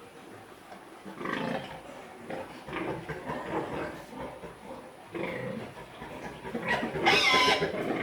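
Pigs grunting and squealing: several separate calls, with a louder, higher squeal about seven seconds in.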